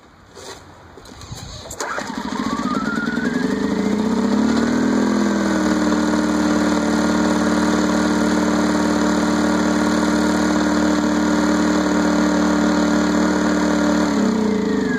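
Champion portable generator's small engine catching about two seconds in, revving up and settling into a steady run, then slowing and dying away near the end. It now starts and runs after water and sludge were cleared from its carburetor's main jet.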